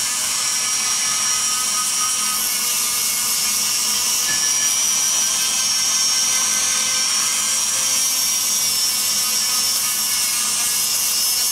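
High-speed rotary grinder with a coarse abrasive sanding bit, running steadily as a high whine while grinding the exhaust port of a cast-aluminum LS cylinder head. The worn bit is coming apart and gives the helicopter-like sound that says it should be pulled out.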